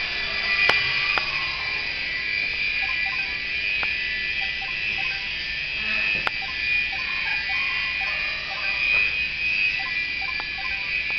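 Small electric RC toy helicopter in flight, its motors and rotors giving a steady high whine, with a few sharp ticks.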